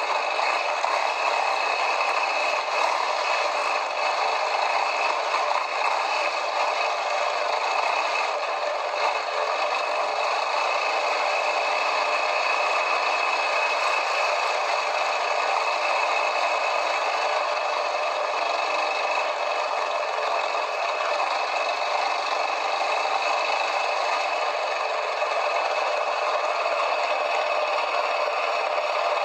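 Quad bike (ATV) on a trail ride, with steady engine noise and constant rattling and clattering of the machine over rough ground.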